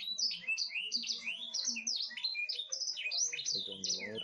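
A flock of lovebirds chirping and chattering together in a constant stream of quick, high, overlapping calls.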